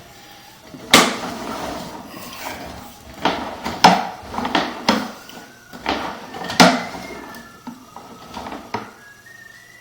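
A string of about ten irregular sharp knocks and clanks. The loudest come about a second in, around four seconds and around six and a half seconds.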